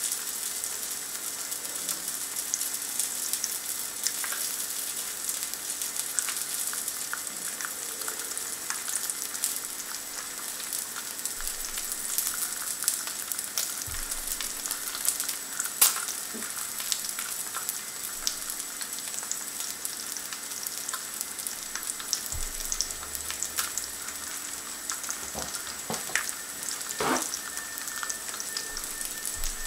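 Bacon rashers, black pudding and a slice of eggy bread sizzling in hot fat in a carbon steel frying pan: a steady crackling hiss with many small pops, and one sharper pop a little past halfway.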